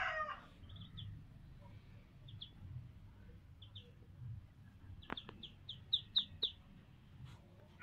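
Two-day-old ducklings peeping: a few short high peeps spaced apart at first, then a quick run of about half a dozen some five seconds in. A few sharp clicks fall among the later peeps.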